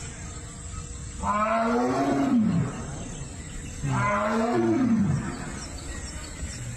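Donkey braying, two long calls about three seconds apart, each a stack of tones that swoops up and down.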